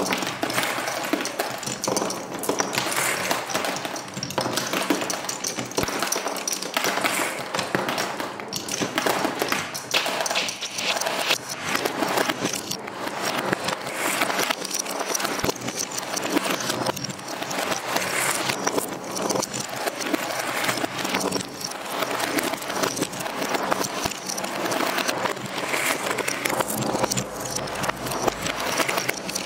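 Many marbles rolling and clattering along the wooden spiral and curved tracks of a Hape Quadrilla marble run, a continuous dense stream of small clicks and knocks as they run over the track joints and drop through the blocks.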